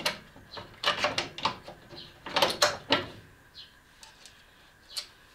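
Knocks and clicks of metal fittings being handled by hand at a snowmobile's front ski mount while a ski widener is fitted: a cluster of sharp knocks in the first three seconds, then a few fainter clicks.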